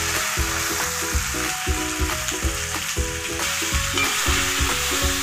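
Raw prawns sizzling in hot oil in a metal kadai as a metal spoon stirs them. Background music with a steady beat plays throughout.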